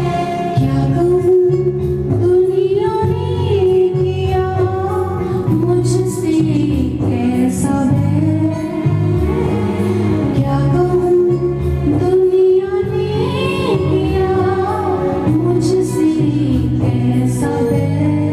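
A woman singing a slow, wavering melody into a microphone over instrumental accompaniment.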